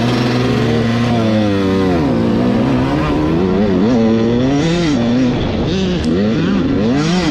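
Dirt bike engine heard from on board the bike, held at a steady pitch for about the first second and a half, then revving up and dropping back again and again as the rider works the throttle along the track.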